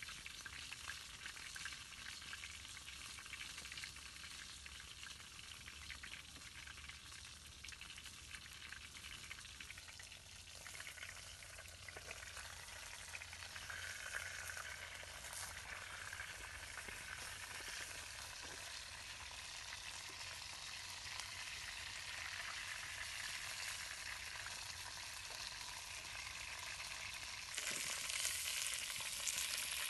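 Fish frying in hot oil in a blackened wok: a steady sizzle, with occasional scrapes of a slotted metal spatula against the pan. The sizzle grows louder near the end.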